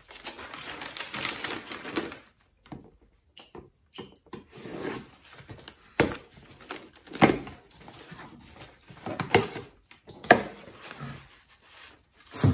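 Packing paper rustling and crinkling as a cardboard box is unpacked, broken by several sharp clicks and knocks from the handling, the loudest about halfway through.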